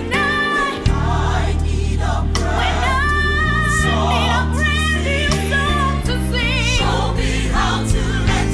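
Gospel music: voices singing together with vibrato over a band, with held bass notes and percussion hits.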